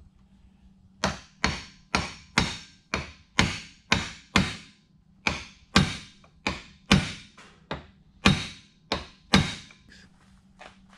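Hammer blows on the bearing caps of a new front-driveshaft U-joint, driving the caps down so the locking clips can be fitted. About twenty sharp, ringing strikes, roughly two a second, with a short pause midway and lighter taps near the end.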